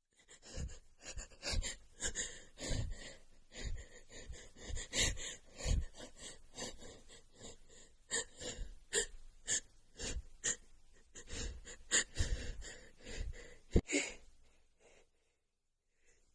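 A woman sniffing and breathing hard through a runny nose, short irregular noisy breaths every half second or so, with one sharp click near the end.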